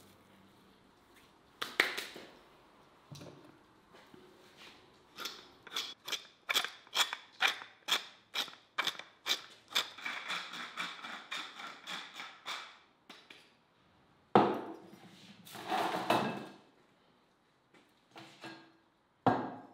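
Hand pepper mill grinding: a run of crisp crunching clicks, about two or three a second, for about eight seconds. Then a few louder knocks on the wooden table as things are set down.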